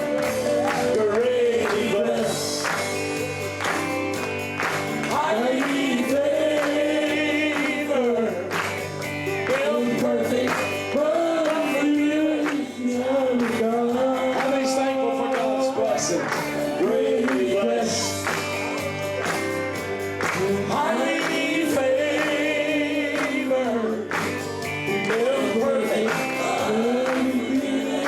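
Two men singing a gospel song as a duet, with live instrumental backing.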